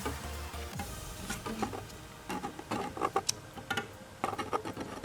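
Light clicks and taps of small plastic drone parts being handled, scattered irregularly and more frequent in the second half, as the camera's ribbon-cable connector is re-seated. A low hum stops about a second in.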